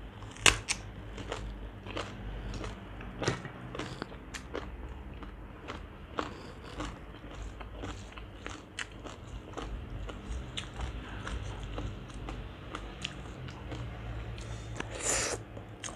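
Crisp bite into a raw Thai round eggplant, then close-up chewing with scattered crunches and clicks. A brief louder noise comes near the end.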